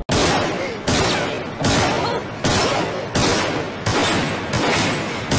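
Sound effect of a run of loud crashing hits, one a little under every second, each starting suddenly and dying away.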